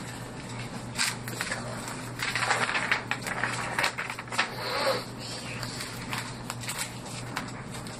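Sheets of paper and stiff construction-paper crafts rustling and crinkling as they are leafed through and shuffled, busiest in the middle.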